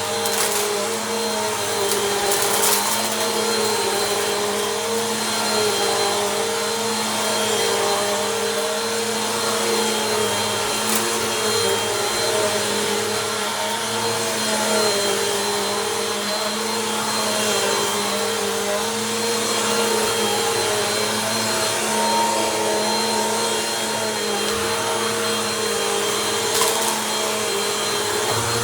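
Bissell Compact vacuum cleaner running over a rug, its motor hum steady with the pitch wavering slightly as the passes change. A few brief crackles come through as gritty dirt is sucked up.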